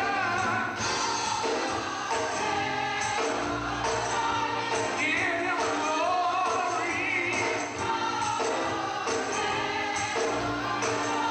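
Gospel music: a choir singing over instrumental backing, with a steady percussion beat.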